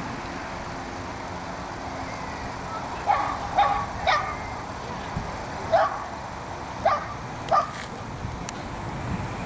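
Shetland sheepdog giving about six short, high barks, starting about three seconds in and spaced irregularly over the next four and a half seconds, over a steady low background hum.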